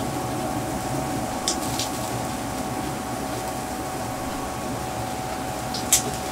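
Steady hum of a smokeless electric grill's fan under a constant hiss of seafood cooking on the grill plate, with a few light clicks about a second and a half in and again near the end.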